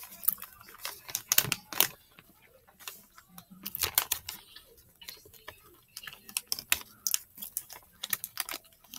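Crinkling of a chocolate bar's wrapper being handled and folded back: a run of irregular crackles and clicks in clusters, with short gaps between them.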